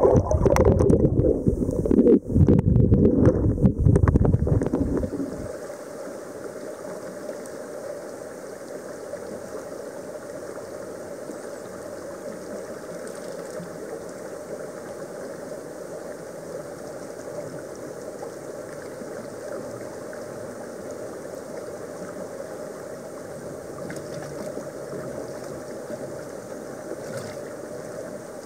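Loud, muffled underwater rumbling with knocks for about the first five seconds. It then cuts off suddenly to the steady rush of a creek's flowing water.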